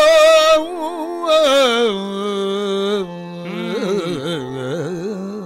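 A Yakshagana bhagavata singing a long, ornamented melisma of a Kannada verse line over a steady drone. The line begins on a held note, steps down to a long lower note, then wavers in quick ornaments and fades near the end.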